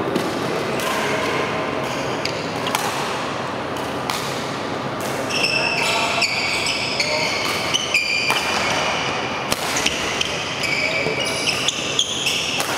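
Doubles badminton rally: sharp racket strikes on the shuttlecock and players' shoes squeaking on the court mat, which get busier about halfway in, with voices echoing in the hall.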